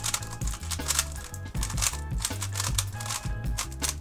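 Background music with a steady bass line, over the quick plastic clicking and clacking of a new QiYi MP 3x3 speedcube being given its first turns.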